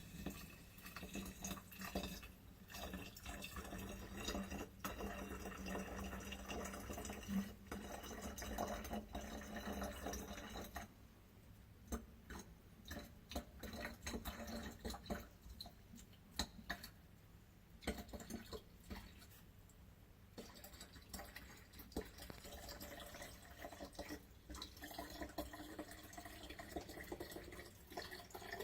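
Liquid dripping and bubbling in a glass flask: a quick, irregular patter of small drips and pops. It is louder for the first ten seconds or so and again near the end. It fits water being added to the flask to push out the carbon monoxide gas.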